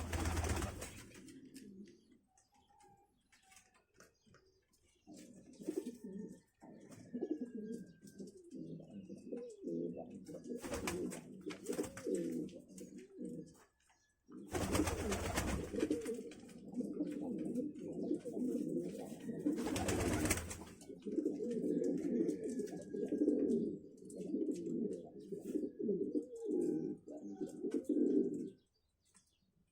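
Doves cooing in long, overlapping runs of low calls, dropping away for a few seconds near the start and again at the end. Faint higher chirps from small birds, and a few brief louder noises, come through now and then.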